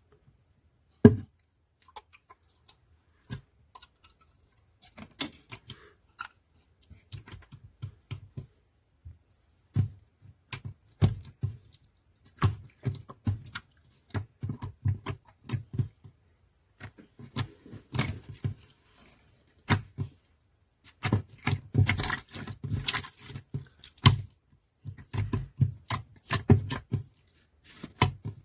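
Pink slime being squished and poked by hand, giving many short, irregular wet clicks and pops in clusters, sparse at first and denser from about ten seconds in.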